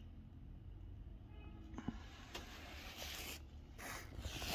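Quiet background with a steady low hum and a few faint clicks, then a rustling hiss from about halfway that grows louder, typical of a handheld phone camera being moved and handled.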